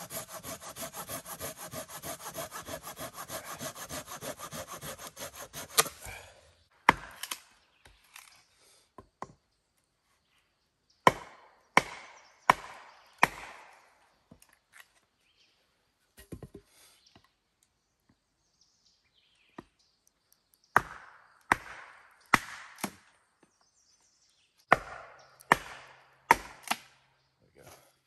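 Wood being sawn by hand with quick back-and-forth strokes, stopping about six seconds in. Then come sharp chopping knocks on wood, mostly in groups of three or four, with quiet gaps between the groups.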